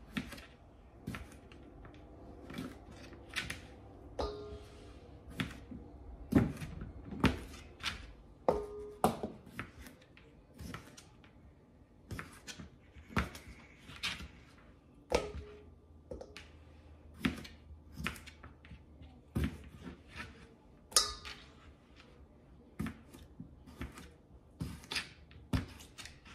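Kitchen knife cutting small potatoes into bite-sized pieces on a plastic cutting board: irregular sharp knocks of the blade striking the board, roughly one a second.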